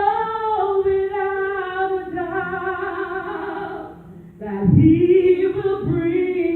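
Gospel singing: a long held sung note for about four seconds, a brief break, then the next sung phrase.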